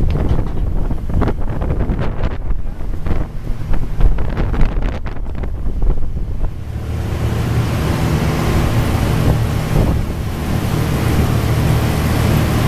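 A prawn trawler's engine runs with a steady low hum while wind buffets the microphone. About six and a half seconds in, the buffeting gives way to a steady rushing hiss over the engine.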